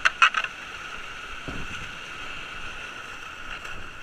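White water rushing steadily around a kayak running a rapid, with a quick run of sharp, loud splashes right at the start and a softer thud about a second and a half in.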